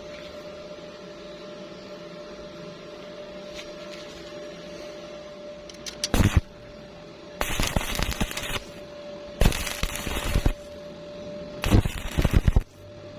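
Stick-welding arc crackling in four short bursts of about a second each, starting about halfway through, as the arc is struck and broken in a stitch-welding rhythm. Before that only a steady hum with one constant tone.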